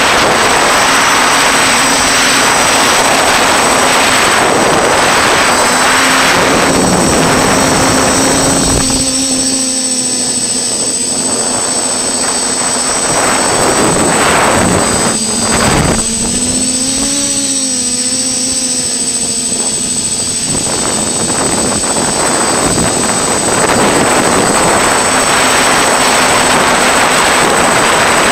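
FPV quadcopter's motors and propellers running, heard through its onboard camera, rising and falling in pitch with the throttle. The noise eases off twice, about a third of the way in and again just past the middle, under a steady high-pitched whine.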